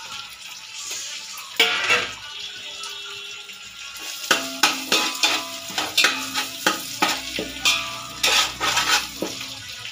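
A metal spoon stirs liquid in a large metal pot. From about four seconds in it knocks against the pot's side two or three times a second, and each knock leaves a brief metallic ring. A clatter about a second and a half in comes as chopped greens are tipped in from a plate.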